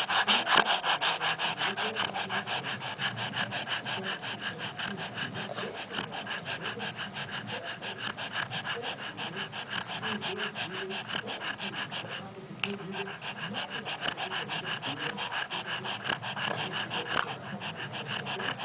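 Dog panting fast with a snore-like rasp on each breath while awake, about four breaths a second, with a brief pause about twelve seconds in.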